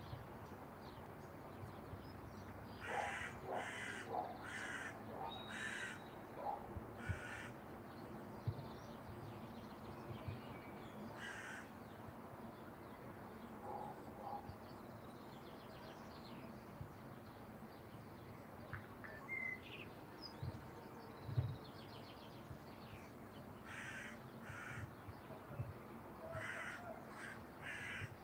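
A crow cawing: a run of about five harsh caws a few seconds in, a few single caws after, and another run of calls near the end. Occasional low thumps on the microphone, the loudest past the middle.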